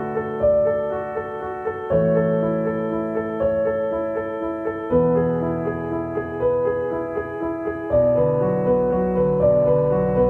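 Background music: a gentle piano or electric-piano piece with sustained chords changing every few seconds under a repeating figure of short notes.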